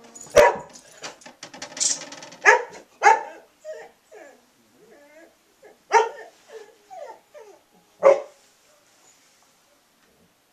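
A dog barking: about five sharp, loud barks spread over eight seconds, with softer whining sounds between them.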